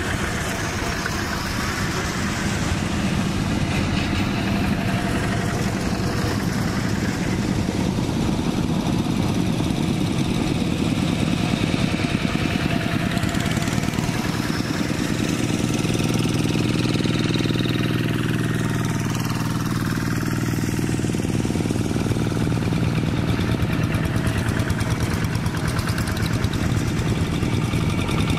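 Diesel engine of a two-wheel hand tractor running steadily with a rapid firing beat; its note shifts and the low hum grows fuller about halfway through.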